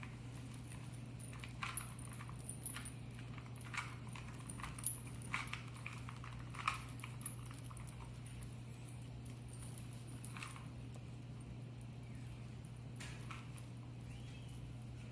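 Plastic 2x2 Rubik's Cube being scrambled by hand: irregular clicks and clacks of its layers being turned, thinning out in the last few seconds, over a steady low hum.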